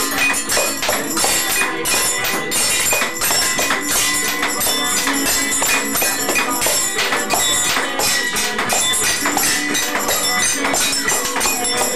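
Kitchen-band percussion: metal pots, pans and utensils struck in a busy rhythm, a dense, continuous clatter of hits.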